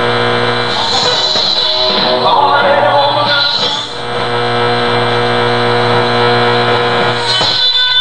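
A vintage AM tube radio being tuned by hand onto a record broadcast from a wireless record player's low-power transmitter: the music comes through with a steady low hum, and sweeping noise and whistles wash over it as the dial moves, about a second in and again near the end, before the station locks in.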